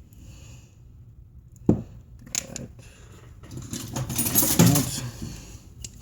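Small hard parts and tools being handled on an amplifier during disassembly: a sharp click a little under two seconds in, a few light taps, then a louder spell of clattering and scraping near the end.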